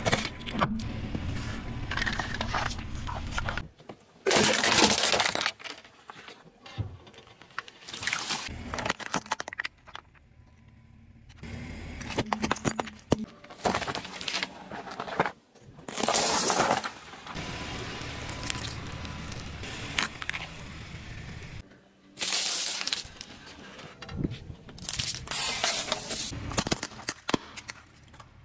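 Car tyre rolling over and crushing plastic cups, sweets and other objects: a string of separate cracks, crunches and pops of plastic and candy giving way, with low tyre rumble between them.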